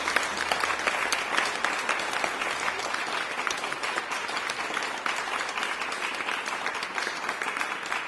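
Audience applauding steadily, a dense patter of many hands clapping that begins to thin and fade near the end.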